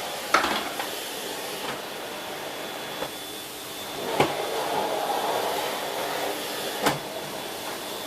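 Siemens Z6 Power 2500 W bagged cylinder vacuum cleaner running steadily, a rushing air noise with a faint high whine. Three sharp knocks cut through it, near the start, about four seconds in and near seven seconds.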